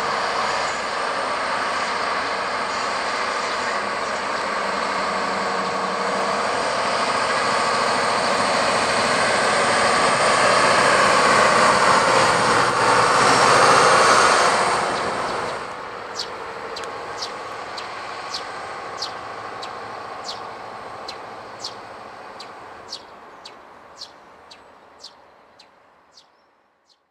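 SŽ class 732 diesel shunting locomotive running past close by, louder as it nears and loudest as it passes, then falling away suddenly. After that comes a fading rumble with a run of sharp, regular clicks, about two a second.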